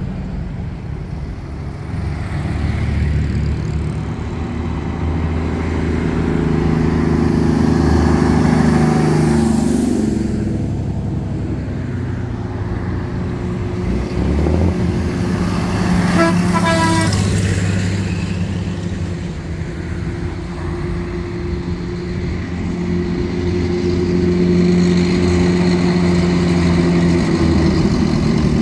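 Engines of a convoy of vintage military vehicles and cars driving past, one engine's pitch dropping as it passes about ten seconds in. A vehicle horn sounds for about a second and a half just past the middle, and a heavier engine grows louder near the end as it approaches.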